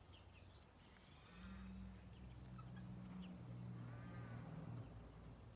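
Near silence: a faint low hum through the middle, with two faint, short high calls, one early and one near the end.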